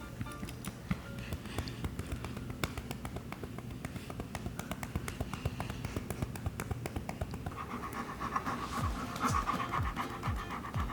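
A dog panting rapidly, over background music.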